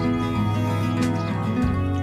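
Background music: a gentle instrumental with sustained notes, the bass shifting to a new note about one and a half seconds in.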